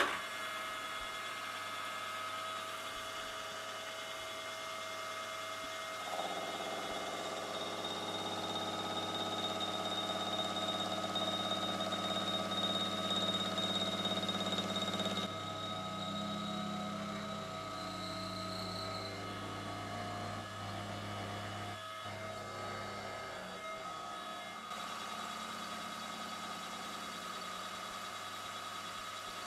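Milling machine spindle running a carbide boring bar in reverse, fly-cutting a small metal part into a ball shape, with a steady hum. The cutting noise gets louder about six seconds in and changes in tone around fifteen seconds.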